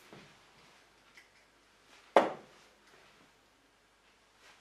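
A steel-tip dart striking a Unicorn Eclipse bristle dartboard once, a single sharp thud about two seconds in, over quiet room tone.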